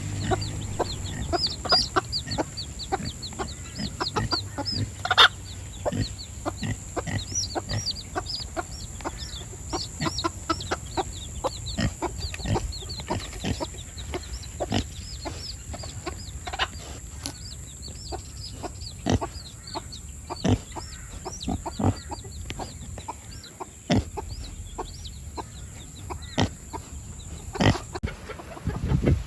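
Chickens clucking in a flock, with a dense stream of quick high chirps and scattered sharp knocks.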